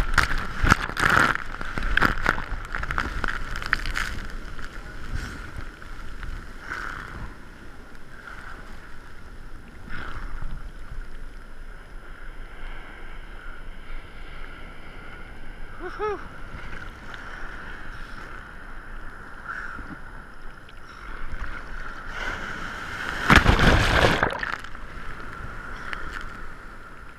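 Seawater sloshing and splashing around an action camera at the water's surface, with a run of loud splashes in the first few seconds and another loud wash over the camera about 23 seconds in. Steady water noise and wind on the microphone fill the rest, with a brief rising call near the middle.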